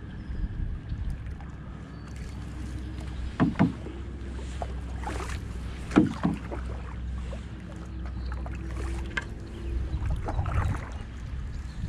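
Canoe paddling: the paddle blade swishing and splashing through the water stroke after stroke, over a low rumble of wind on the microphone. Two sharp knocks stand out, about three and a half and six seconds in.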